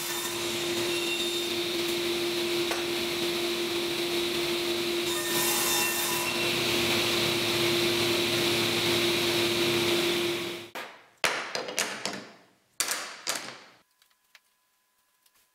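Sliding table saw running with a steady hum and hiss as its blade cuts through an end-grain hardwood cutting board; the sound stops abruptly about two-thirds of the way through. A few short sharp knocks follow, then faint ticks of wooden game pieces being set down on the board.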